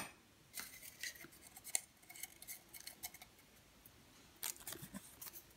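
Folded paper slips rustling and crinkling as one is picked out of a pot and unfolded, in faint scattered crackles with a louder crinkle about four and a half seconds in.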